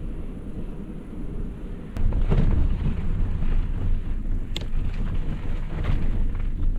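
Bicycle riding over a rough field track: deep wind buffeting on the microphone mixed with tyre rumble, louder from about two seconds in, with a few sharp knocks and rattles from the bike over bumps.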